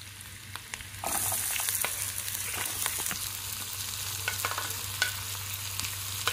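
Chopped onions hitting hot oil in a frying pan with garlic and green chillies: the sizzle jumps louder about a second in as they go in, then keeps going with scattered clicks, over a steady low hum.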